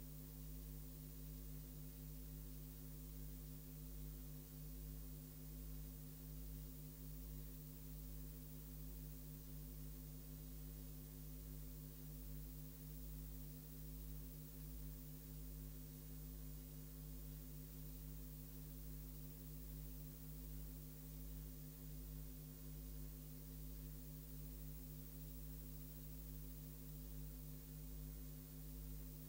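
Steady electrical hum: a low buzz of several held tones with a deep rumble under it, unchanging throughout, with no commentary or race sound over it.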